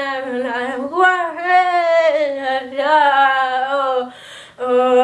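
A boy singing solo and unaccompanied, holding long notes that slide up and down in pitch, with a short break about four seconds in before the next held note.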